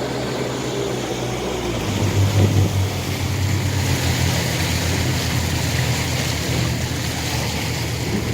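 Twin 60 hp Mercury Command Thrust four-stroke outboard motors running with the boat underway, over a steady rush of water. The engine note swells about two seconds in and then holds steady.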